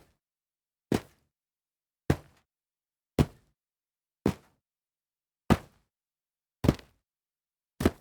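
Foley of feet landing from jumps onto dirt: a series of single dull thuds, about one a second, each with a short gritty tail, with silence between them.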